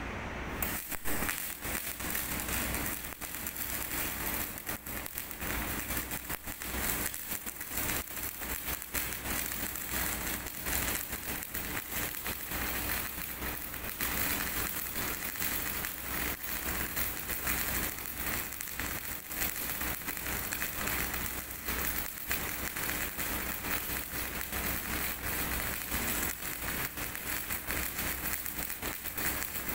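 MIG welding arc on steel plate: a dense, irregular crackle that starts about half a second in and runs on steadily as the bead is laid.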